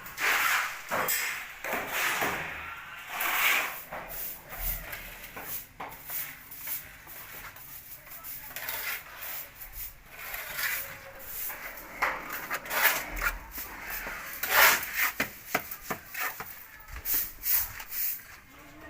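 Hand carpentry on wood: irregular scraping and rubbing strokes of uneven length, with a few sharp knocks in between.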